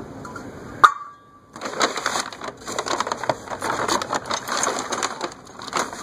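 A brown paper bag rustling and crinkling as a hand rummages through it, with small hard parts clicking against each other. Just before the first second there is one sharp metal clink that rings briefly.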